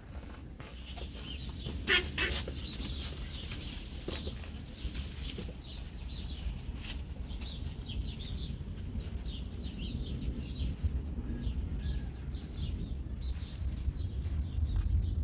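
Birds calling over and over in short, high, falling chirps, with one louder call about two seconds in, over a low rumble.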